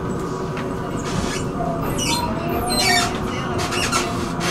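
Electric tram running along its track: a steady rolling rumble from the wheels on the rails, with several sharp rattles and a faint whine through the middle.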